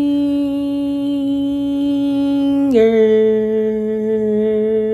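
A woman's voice singing two long held notes, the words "another banger" drawn out. The first note drops smoothly to a lower one about three seconds in, and the lower note is held to the end.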